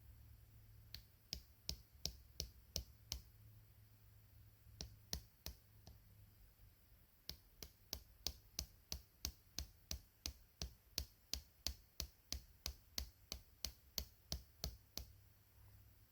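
Sharp, evenly spaced clicks, about three a second, in three runs, the longest from about seven seconds in to near the end.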